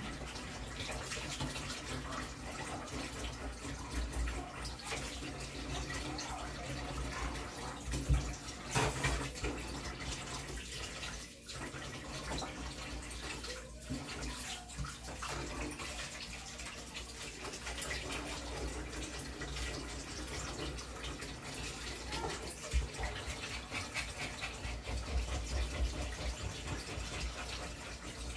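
Water running from a kitchen tap into a stainless steel sink as a fish is rinsed and cleaned under it, with a few brief knocks against the sink.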